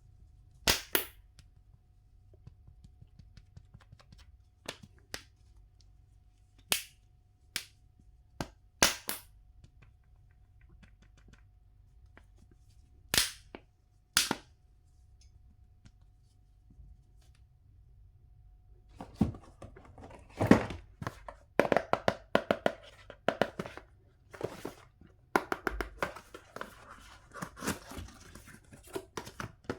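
Hard plastic toys or packaging handled with scattered sharp clicks and knocks. About two-thirds of the way through, a dense stretch of rustling and crinkling packaging begins.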